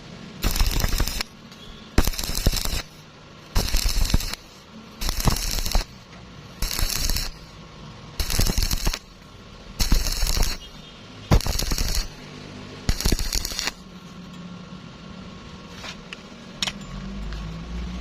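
Stick-welding arc crackling in short, regular bursts, nine arcs struck and broken about one and a half seconds apart, as in stitch welding; the bursts stop about 14 seconds in.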